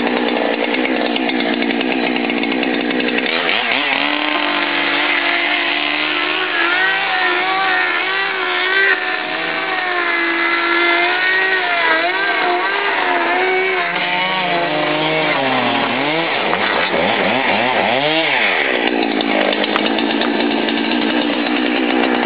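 Chainsaw running at high revs as it cuts through a hot tub's plastic shell. The engine pitch climbs about three seconds in and wavers as the chain bites, then dips and climbs again after about sixteen seconds.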